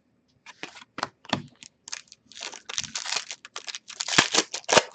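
2016/17 Upper Deck Series 2 hockey trading cards being handled and slid through by hand, giving irregular light clicks and rustles that become busier partway through.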